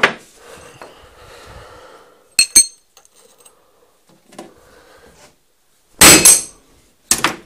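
Hammer striking welded steel plate, a few sharp ringing metallic blows spaced a couple of seconds apart, the loudest about six seconds in. The weld beads are being knocked on to test them for brittleness and hidden pores.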